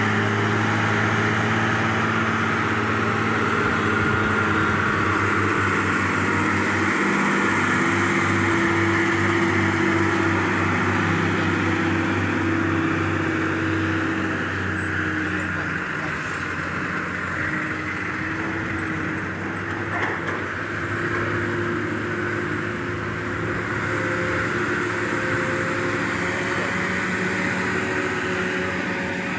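Diesel engines of heavily loaded goods trucks running steadily as they pull slowly past, their low engine note shifting gradually in pitch.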